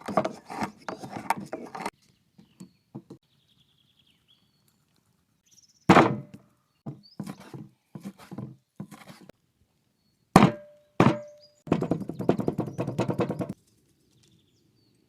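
Meat being minced with a cleaver (satır) on a wooden board. Rapid runs of chopping strokes at the start and again near the end, with heavier single blows in between, one followed by a brief ring.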